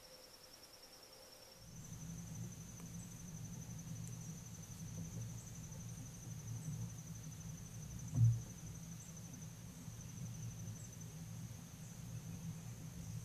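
Steady insect chorus, a continuous high pulsing trill that steps slightly higher in pitch about two seconds in. From then on a low rumble lies under it, and a single dull thump stands out about eight seconds in.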